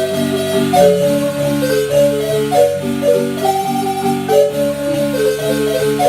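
Marimba music: a melody of held, overlapping notes over a steady, repeating pattern of lower bass notes.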